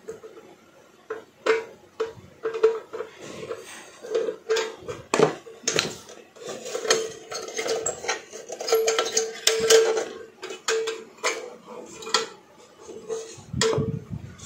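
Irregular metallic clicks, taps and short scrapes from handling the inside of a rice cooker's base: fingers pushing on the thermostat switch contacts and wiring against the metal housing.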